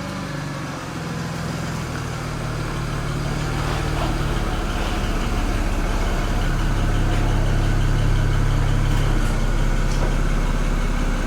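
BMW straight-six engine idling steadily just after a cold start, getting gradually louder over the first several seconds.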